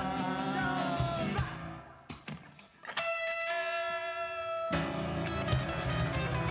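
Live rock-and-roll band with electric guitar and cajón: singing over the band for about a second, then the band drops out and a single note rings on its own for a moment before the full band comes back in.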